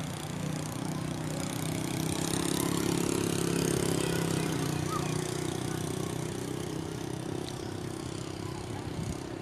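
A motor vehicle's engine running, growing louder to a peak a few seconds in and then slowly fading as it passes.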